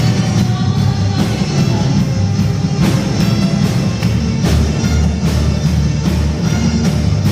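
Worship band playing an instrumental passage of a praise song, drum kit keeping a steady beat under the full band.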